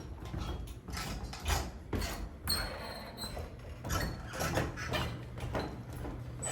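Footsteps walking down stairs: irregular knocks and scuffs, with a short high squeak about two and a half seconds in.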